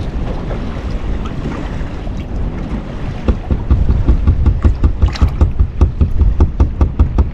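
Wind rumbling on the microphone over water around a fishing boat. About three seconds in, a regular low thumping starts, about three beats a second, and becomes the loudest sound.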